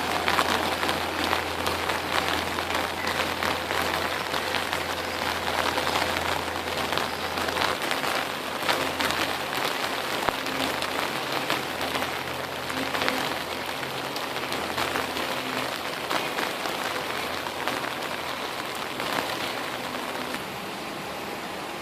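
Steady rain falling, with many small drop ticks in a dense hiss, slowly easing off toward the end.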